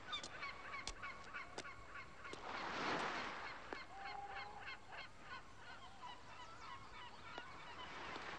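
A flock of geese honking, many short repeated calls overlapping, over a faint rushing background that swells about three seconds in.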